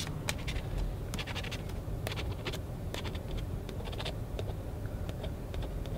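A scratch-off lottery ticket being scratched: a run of short, irregular scraping strokes over a low steady hum.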